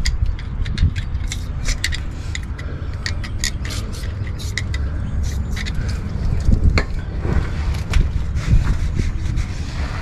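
Short hisses of PB Blaster penetrating oil sprayed from an aerosol can through its extension straw, in quick irregular bursts that thin out after about six seconds, over a steady low rumble.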